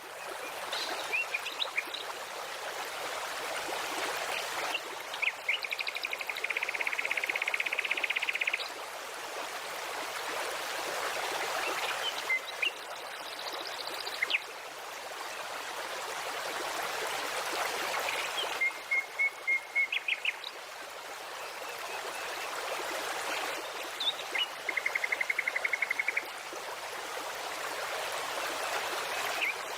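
Flowing stream with songbirds singing over it: short chirps, two long fast trills and a run of repeated notes.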